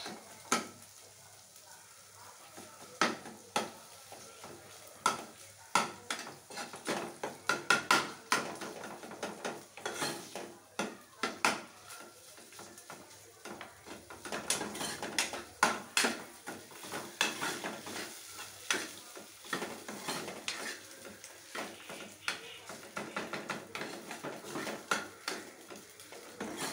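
Metal spoon scraping and knocking irregularly against a steel pot as cooked rice is stirred and fried in ghee, over a faint sizzle.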